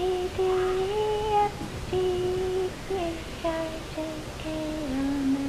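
A child's voice singing a slow tune in long held notes, drifting lower by the end.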